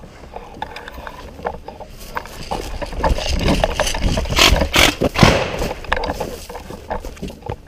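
Handling noise from a rifle-mounted action camera: knocks, scrapes and rustling of gear and clothing as the player moves and crouches, with a rumble of wind and buffeting on the microphone. There is a cluster of sharp knocks around the middle.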